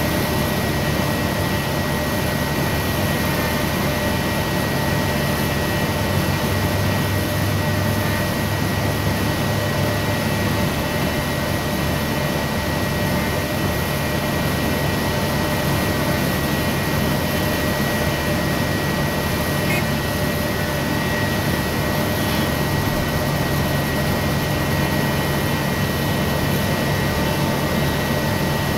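A heavy forklift's engine running steadily, heard from inside its enclosed cab, with a steady whine over the hum.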